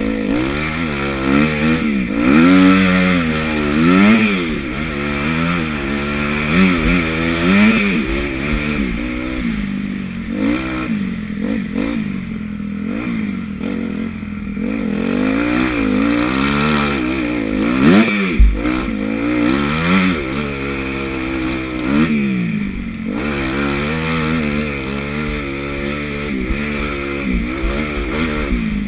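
Honda CRF250 motocross bike's four-stroke engine, heard from the rider's helmet, revving up and dropping back again and again as it is opened up and shut off around the track. A single sharp knock comes a little past halfway.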